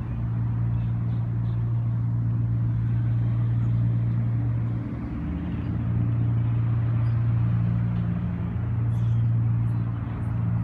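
A steady low mechanical hum, like an engine or machinery running, with a few faint high ticks near the end.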